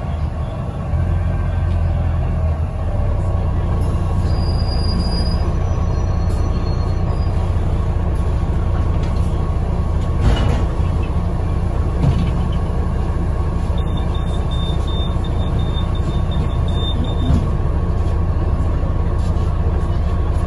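Steady low engine and road rumble inside a moving bus's passenger cabin, with a thin high squeal twice.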